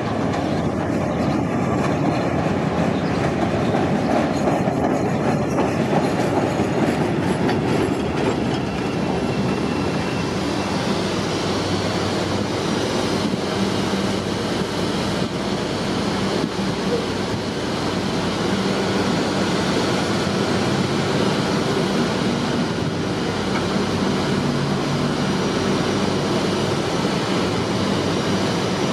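CTA 'L' rapid-transit train running on the tracks, wheels clattering over the rail joints with a faint wheel squeal. The sound is heaviest in the first several seconds.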